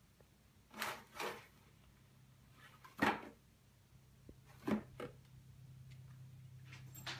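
Small cardboard box scraping and rustling in short bursts as cats paw and nose into it and shove it across a wooden floor, about six times, the loudest about three seconds in.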